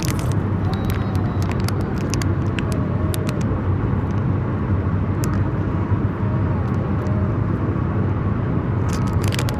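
Steady road and engine noise inside a moving car's cabin, with scattered light clicks and crackles, a cluster of them near the end.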